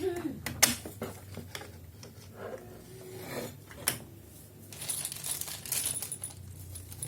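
Sharp clicks and clatter of hard parts being handled, with a stretch of rustling about five seconds in.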